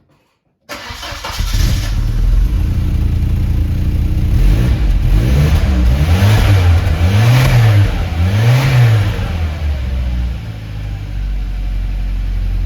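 Volvo 940 turbo's engine starting, running through its rusted stock exhaust. It is revved three times in quick succession around the middle, each rev rising and falling, then settles back to a steady idle.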